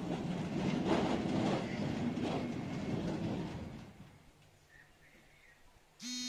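Garen sliding-gate motor driving a steel sliding gate shut: a loud rumble of the gate running along its track for about four seconds, dying away as the gate reaches the closed position. Near the end, a short electronic beep.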